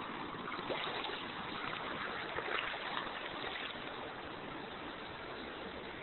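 Steady rush of flowing river water, with a few brief louder knocks or rustles about a second in and again around two and a half seconds.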